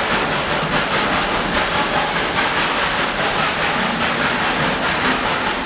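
Narrow-gauge steam locomotive running, its exhaust chuffing in a quick even rhythm of about four or five beats a second over a steady hiss of steam.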